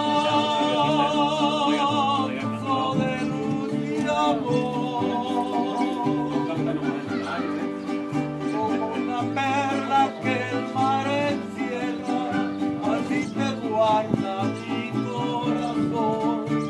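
Mariachi band playing, with strummed guitars over a steady bass line.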